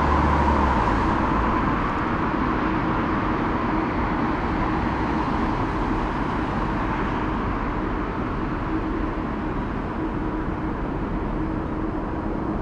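Steady outdoor roar, a broad rushing noise that eases slightly and loses some of its top end over the seconds, with a low hum dropping out about a second in.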